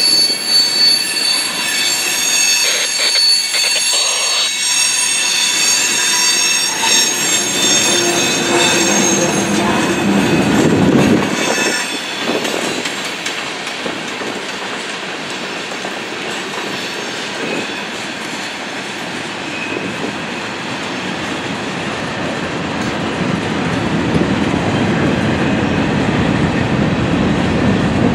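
Freight train cars, mostly covered hoppers, rolling past with a steady rumble and clatter of steel wheels on rail. A high-pitched wheel squeal rings over it for the first ten seconds or so, then fades.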